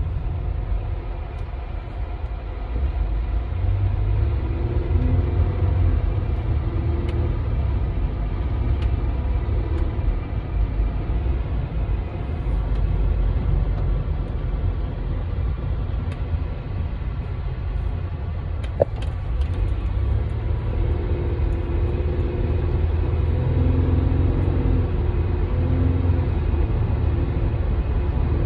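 Ford Edge on a test drive: a steady low rumble of engine and road noise.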